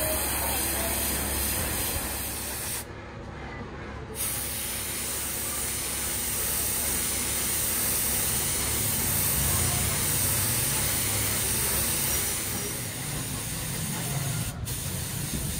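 Gravity-feed compressed-air paint spray gun hissing steadily as paint is sprayed. The spray stops for about a second and a half some three seconds in, then resumes, with another very short break near the end.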